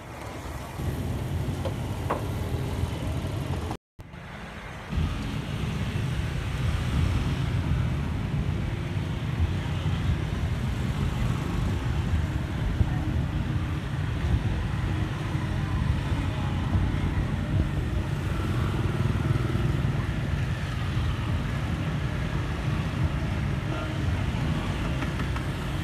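Steady street traffic noise, with motorbikes passing on the road. The sound cuts out for a moment about four seconds in.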